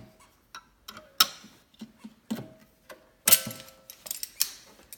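Sharp metal clinks and clanks, about nine in a few seconds, some with a short ringing tone, as a steel exhaust spring is stretched with vice grips and hooked onto the snowmobile's exhaust. The loudest clank comes about three seconds in.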